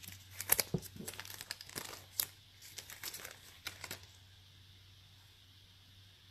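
Crinkling of plastic packaging handled by hand: a run of small sharp crackles that stops about four seconds in.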